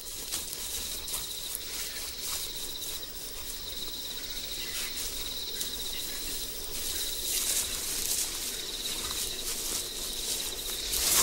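Insects trilling: a steady, high-pitched pulsing trill, with scattered soft clicks over it.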